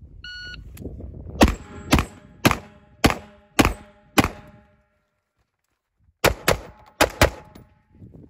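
A short electronic beep, then an AR-15 rifle fires six shots about half a second apart. After a pause of about two seconds, four more shots follow in two quick pairs.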